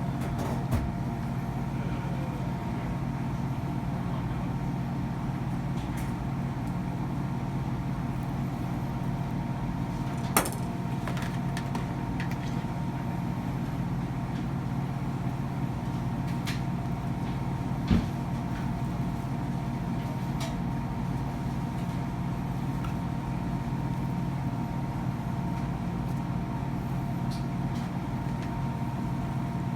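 A steady machine hum with a few sharp knocks, the loudest about ten and eighteen seconds in.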